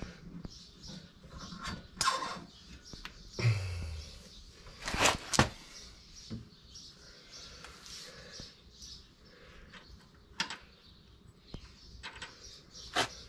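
Scattered metallic clinks, clicks and knocks of a brake drum and hand tools being worked on a car's front wheel hub. The loudest is a pair of knocks about five seconds in.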